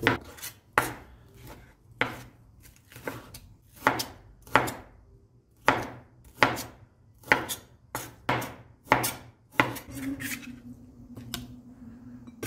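A broad-bladed kitchen knife chopping raw chicken breast into cubes on a cutting board: a dozen or more sharp knocks of the blade hitting the board, about one to two a second, easing off near the end.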